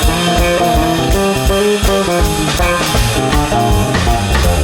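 Live band playing: guitar chords over bass guitar and a steady drum-kit beat.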